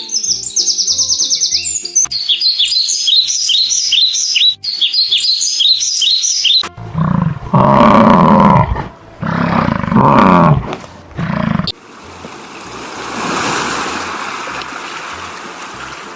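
Small bird chirping in quick repeated high notes for about six seconds, then a sudden switch to a big cat roaring: three loud, long, deep roars followed by a rough breathy rumble. Background music with a steady low beat plays underneath.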